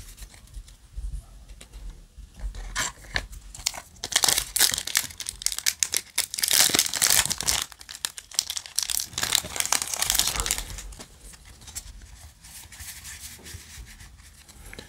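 A foil Yu-Gi-Oh! booster pack being torn open by hand: a few seconds of crackly tearing and crinkling of the foil wrapper, loudest in the middle, with softer rustling on either side.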